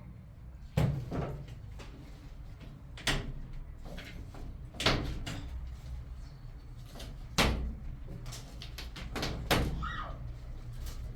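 Scattered knocks and clunks of hard objects being handled: five louder ones one to two and a half seconds apart, with lighter clicks between, over a faint low rumble.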